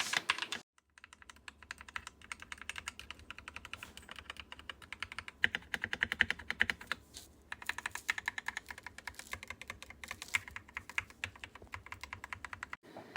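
Fast, continuous typing on a custom-built mechanical keyboard with linear switches, the keys clacking in quick runs with a brief pause about seven seconds in.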